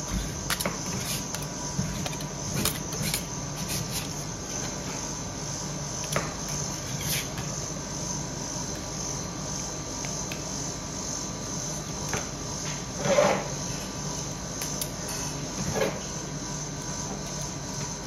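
Metal spatulas tapping and scraping on a stainless ice-cream roll cold plate as they chop and gather ice cream, with a few light taps and two louder scrapes in the second half. Underneath runs a steady hum with a high whine.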